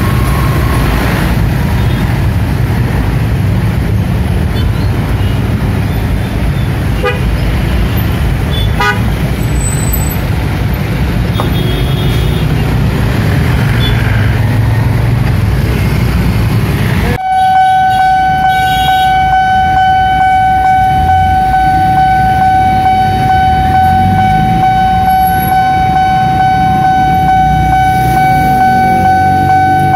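Road traffic running at a railway level crossing: motorbike and auto-rickshaw engines. About halfway through, after a sudden change, the crossing's warning alarm starts: one steady, unbroken electronic tone that holds, warning of an approaching train.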